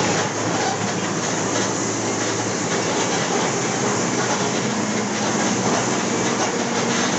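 Interior sound of a Mercedes-Benz OF-1722 city bus on the move: its diesel engine runs at a steady pitch under the rattle and road noise of the body.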